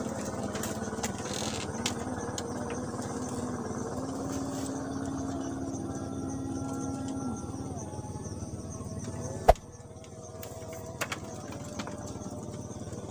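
A steady droning hum that shifts pitch in steps, like a distant motor, with one sharp knock about nine and a half seconds in.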